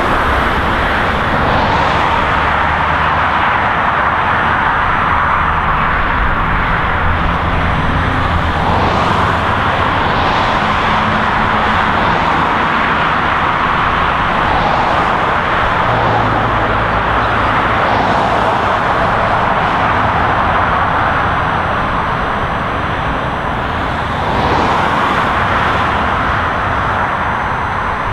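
Dense highway traffic: a continuous wash of tyre and engine noise from cars, trucks and motorcycles. It swells every several seconds as vehicles pass close by, over a low, steady engine hum.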